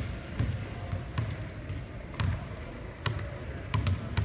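Irregular dull thumps, some with a sharp slap on top, about one or two a second, over a steady hum of background noise.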